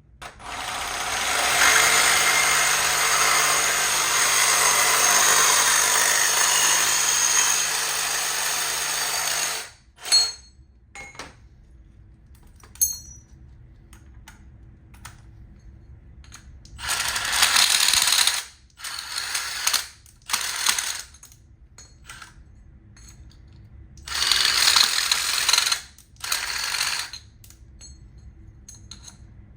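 A power tool runs steadily for about nine seconds, with a low motor hum under it. It stops, and after some clicks and knocks it runs again in several short bursts of one to two seconds.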